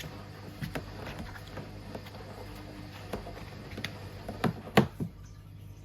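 Plastic clicks and knocks from handling a tumble dryer's lint filter while fluff is cleared from it, with the sharpest knocks about four and a half to five seconds in, over a low steady hum.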